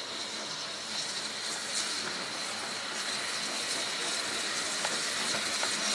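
BR Standard Class 9F steam locomotive coasting into the station, a steady hiss of steam that grows slowly louder as it approaches.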